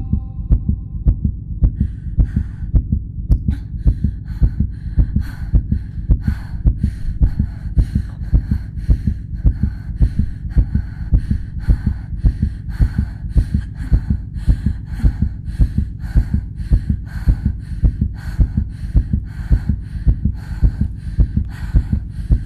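A heartbeat sound effect, beating steadily and evenly, with a fainter hiss joining each beat from about two seconds in. A held musical chord fades out in the first second.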